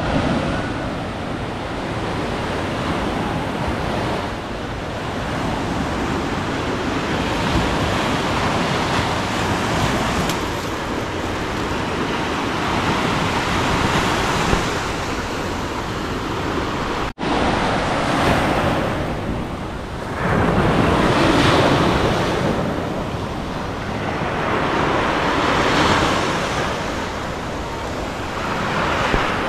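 Sea waves washing onto the beach, the surf swelling and easing every few seconds, with wind blowing across the microphone. The sound cuts out briefly a little past halfway through.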